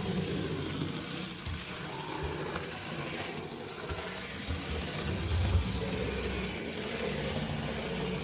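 Lima 0-4-0 model locomotive running along the layout track, its small electric motor and geartrain giving a steady whirring hum, with a few low knocks. The motor has freshly fitted brushes and runs smoothly without stalling.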